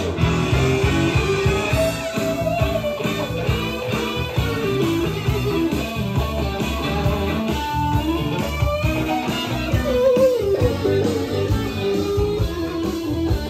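Guitar music played back from a type II cassette on a Sony TC-K777ESII deck, ending abruptly at the very end.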